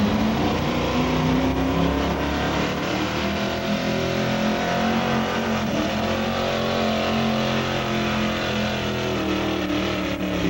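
Gasoline engine of a 1960s Ford pickup running hard and steady under heavy load as the truck pulls a weight-transfer sled, its pitch wavering only slightly.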